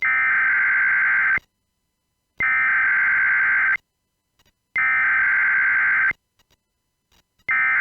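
Emergency Alert System header tones: three identical electronic data bursts about a second and a half long with a second of silence between each, and a fourth starting near the end, the warbling signal that opens a severe weather alert.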